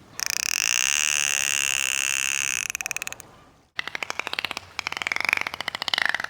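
Dolphin vocalizing: a steady, rapid buzz of pulses for about two and a half seconds, then after a short break fast trains of clicks, with a wavering whistle over them near the end.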